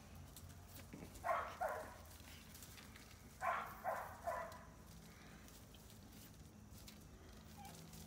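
A small dog barking: two quick barks about a second in, then three more a couple of seconds later.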